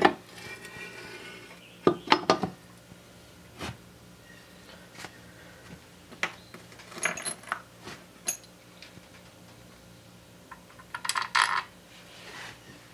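Scattered metal clinks and knocks from fitting the crankcase cover onto a small Briggs and Stratton engine block and handling its bolts, with a quick cluster of clinks near the end.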